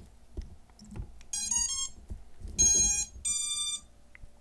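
FPV quadcopter's ESCs beeping through its brushless motors on power-up, after a few faint clicks as the battery is plugged in: a quick run of three rising beeps, then a lower beep and a higher beep. This is the usual start-up tune of the ESCs, the sign that they have powered up and found the throttle signal.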